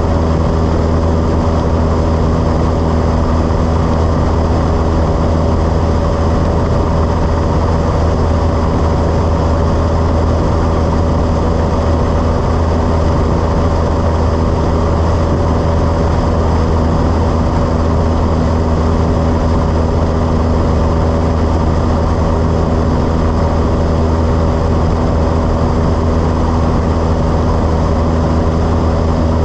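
Single-engine Cessna 172's piston engine and propeller running steadily in flight, a constant low drone with no change in pitch.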